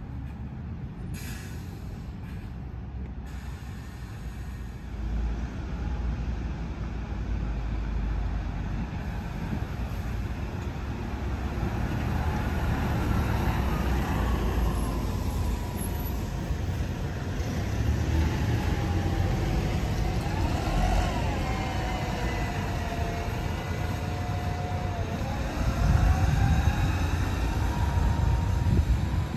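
City buses driving past at close range, their engines rumbling, with a whine that glides up and down in pitch through the second half. The rumble grows louder about five seconds in and again near the end as a bus passes close by.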